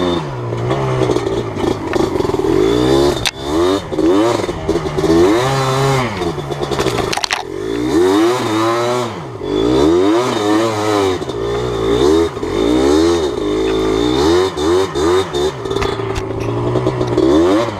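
Yamaha Blaster ATV's two-stroke single-cylinder engine under way. It revs up and falls back over and over as the throttle is worked, with a brief drop about seven seconds in.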